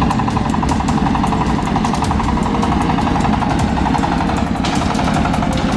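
An engine running steadily under load, with a fast, even pulse.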